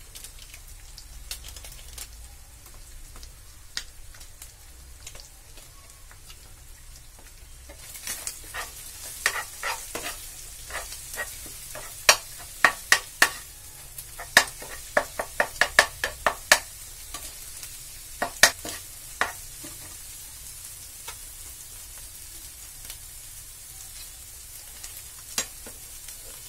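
Eggs frying in a pan with a faint sizzle, while a steel spatula scrapes and taps against the pan as it breaks up and stirs them. The clicks of the spatula come thick from about a third of the way in to about three-quarters through, then thin out.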